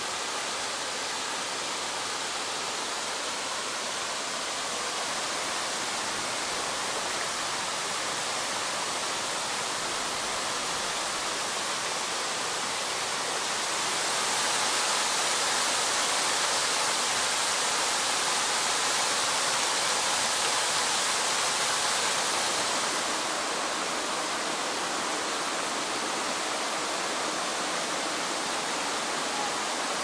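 Waterfall pouring over rock ledges into a rocky creek: a steady rush of falling water that grows a little louder about halfway through, then eases back about two-thirds of the way in.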